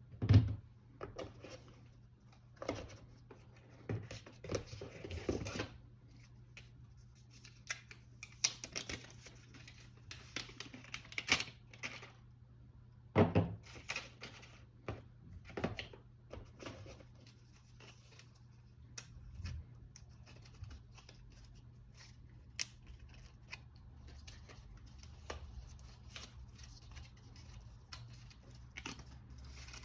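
MacBook Pro packaging being handled during unboxing: paper and cardboard rustling and scraping, with scattered taps and knocks, the loudest just after the start and again about a third of the way in.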